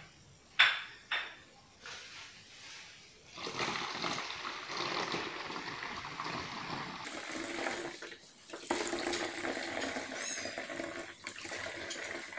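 Liquid fruit mash pouring from a stainless steel pot through a plastic funnel into a plastic bottle, a steady splashing gush with a brief break about 8 seconds in. Two sharp knocks, like metal on metal, come in the first second or so before the pouring starts.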